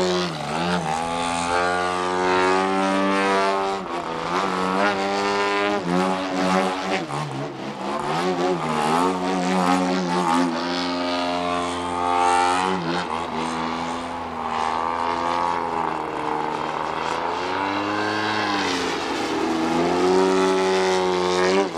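ZDZ two-stroke gasoline engine and propeller of a 39% Laser Z2300 aerobatic model plane in flight. Its pitch rises and falls again and again through the manoeuvres.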